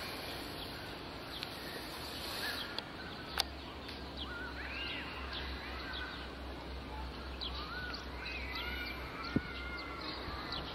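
Birds chirping, with short rising and falling calls through the middle and later part, over a steady low rumble. Sharp clicks come about three seconds in and again near the end.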